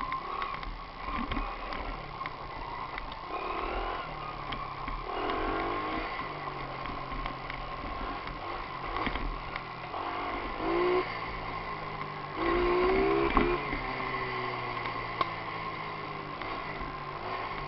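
Mini moto (pocket bike) engine running, revving up briefly twice, louder about two-thirds of the way through.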